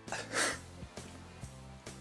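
Background music with a steady beat, and about half a second in one short, sharp snort through the nose.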